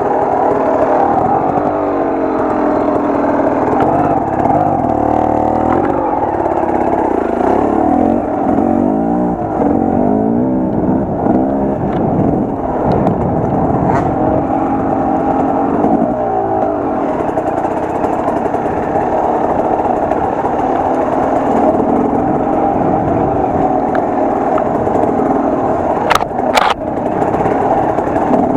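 Enduro motorcycle engine running under load, its pitch rising and falling as the throttle is worked over rough ground. Two sharp knocks near the end.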